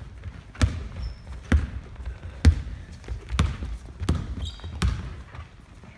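A basketball being dribbled on a hardwood gym floor: six bounces, about one a second.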